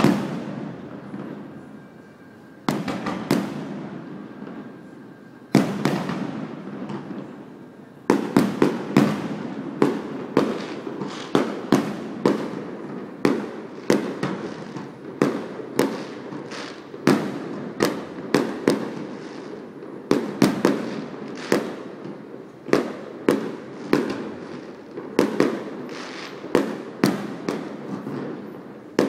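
Fireworks shells bursting in the sky: a few single bangs several seconds apart, then from about eight seconds in a rapid run of bangs, about two a second, each dying away in a rumble.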